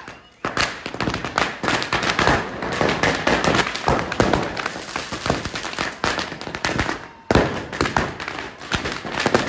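Firecrackers packed inside a burning Ravan effigy going off in a rapid, irregular string of bangs and crackles. They start about half a second in, pause briefly about seven seconds in, then start again.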